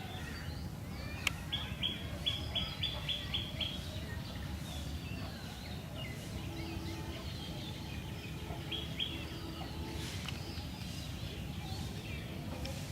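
Birds calling, with a quick run of repeated high chirps about two seconds in and a shorter run near nine seconds, over a steady low rumble of wind and outdoor noise.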